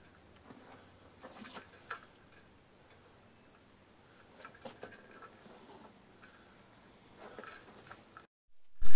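Scattered footsteps and rustles on a woodland trail, under a steady high-pitched insect trill. The sound drops out suddenly just before the end.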